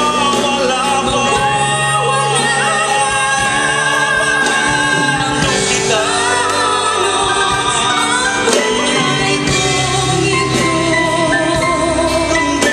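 A live band playing a slow Filipino love ballad, with a singer's voice carrying the melody over sustained accompaniment.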